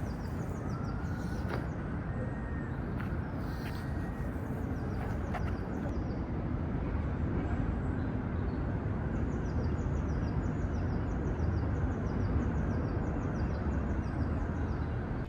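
Steady low rumble of outdoor background noise. In the second half, a bird chirps a quick run of short, high, falling notes.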